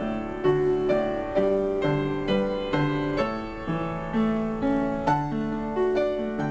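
Background piano music: notes and chords struck in an even pattern about twice a second.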